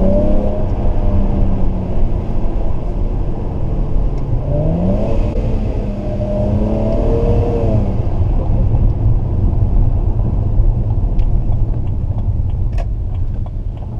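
BMW 335i's turbocharged 3.0-litre straight-six through an AC Schnitzer rear silencer, heard from inside the cabin while driving: a steady deep rumble, with the engine revving up about four seconds in as the car accelerates, holding for a few seconds and then easing off. A few faint clicks near the end.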